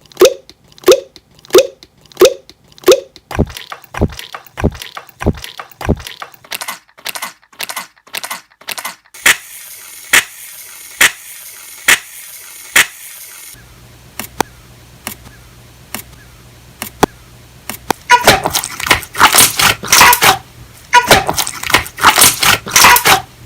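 Slime being pressed and worked, making a run of sharp clicky pops: evenly spaced at first, about one and a half a second, then faster, and near the end dense bursts of crackling.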